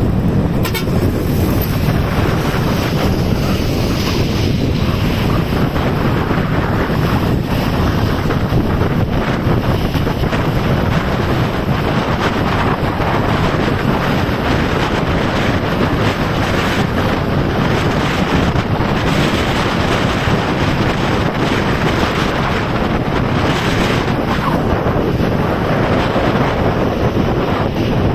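Steady, loud wind rush buffeting the microphone of a motorcycle riding at speed, with road and traffic noise beneath.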